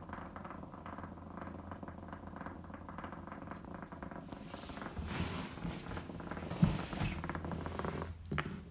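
Small battery-powered Hexbug robot bug buzzing as it vibrates across a hardwood floor. In the second half there is rustling and a sharp thump about six and a half seconds in.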